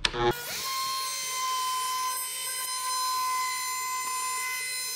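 Porter-Cable router with a 12V Tools CPR resizer bit switching on about a third of a second in, then running with a steady high whine as the bit trims a pass around a birch plywood subwoofer cutout.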